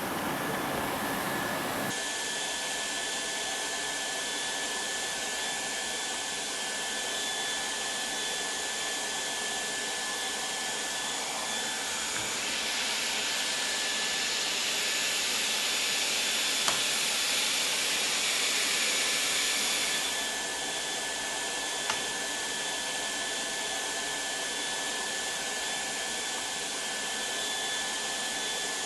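Leister Variant T1 hot-air welding machine running: a steady blower hiss with a thin high whine. The hiss swells louder and brighter for several seconds midway, and there are a couple of faint clicks.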